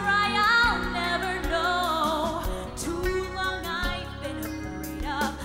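A woman singing a live show tune into a microphone, holding wavering notes with vibrato over instrumental accompaniment.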